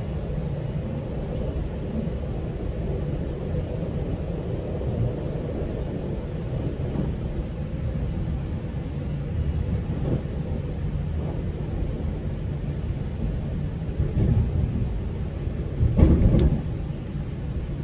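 Steady low rumble of a GO Transit commuter train, heard from aboard, with two brief louder bumps near the end, the stronger about sixteen seconds in.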